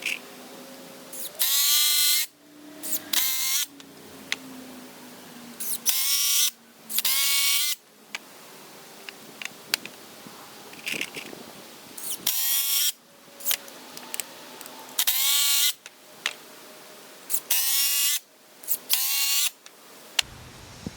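Power drill driving screws into pine boards in about nine short runs, mostly in pairs, the motor's whine rising as each one starts.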